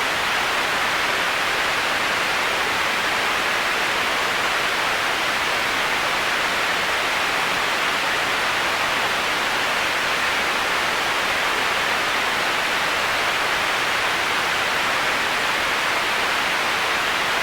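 Steady, unbroken hiss of a heavy-rain white-noise sleep track, brightest in the upper middle, with no single drops or changes standing out.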